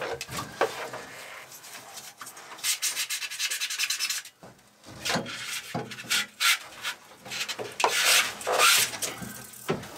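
A hand tool rasping at cured spray foam insulation in runs of rough, quick scraping strokes, with a short pause about halfway through. The foam is being shaved back so the plywood boards can sit flush against it.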